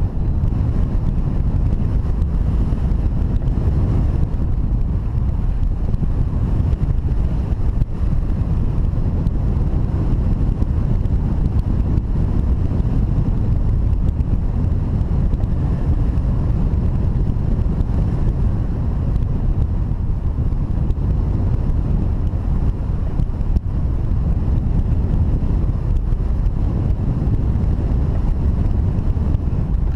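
Wind rushing over the microphone of a hang glider in flight: a steady, loud, low rumble of buffeting airflow.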